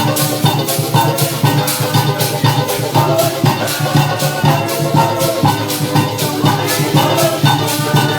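Live parang band music, with shakers and a drum keeping a steady, even beat under pitched instruments.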